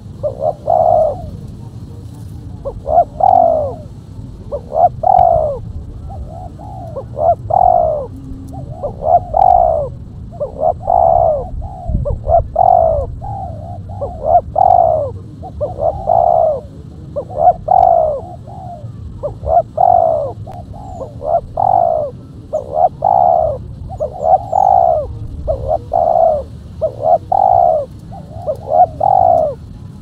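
Spotted dove (tekukur) cooing over and over, one coo about every one to two seconds, often two in quick succession, each rising and then falling in pitch.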